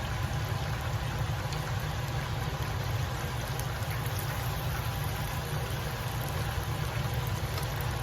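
Panko-breaded chicken cutlets frying in oil: a steady sizzle with fine crackling, over a low steady rumble.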